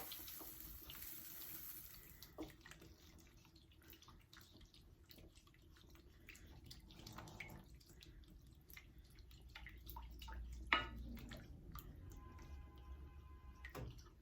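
Faint wet stirring: a spoon working cream into thick tomato paste in a pan, with scattered soft scrapes, clicks and liquid squelches. A faint steady whine comes in near the end.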